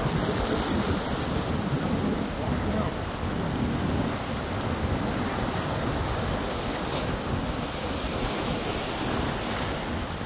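Wind buffeting the microphone over surf washing against jetty rocks, a steady rushing noise with no distinct events.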